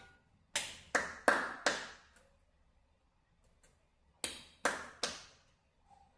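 Hand claps: four sharp claps in quick succession, a pause of about two seconds, then three more. They are claps made to trigger a moving-head disco light's sound-activated mode.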